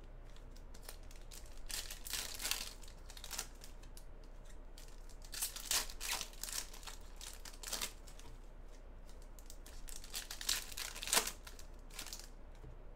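Foil trading-card pack wrappers crinkling and being torn open by hand, in short rustling bursts that come and go many times.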